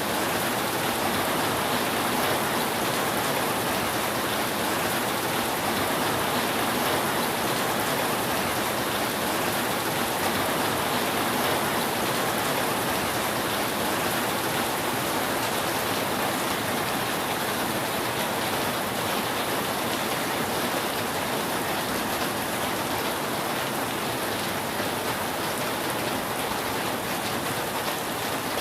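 Steady rain falling on a roof: an even, unbroken hiss of raindrops.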